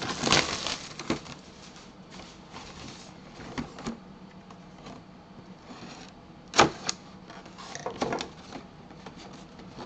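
Plastic shrink wrap crinkling as it is pulled off a cardboard box, then the box being handled and turned over on a table, with a few sharp knocks, the loudest about two-thirds of the way through.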